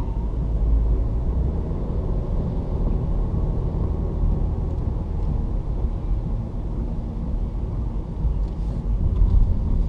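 Steady road and engine rumble inside a moving car.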